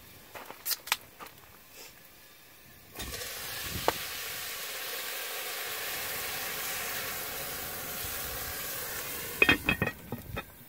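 Liquid poured from a can into a hot cast-iron Dutch oven over a campfire, sizzling and hissing steadily for about six seconds as it hits the hot pot. A few clinks about a second in, and a quick run of clinks near the end as the glass lid is set back on the pot.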